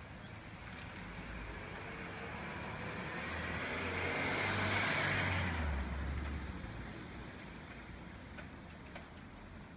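A car passing by, its engine and tyre noise swelling to a peak about five seconds in and then fading away.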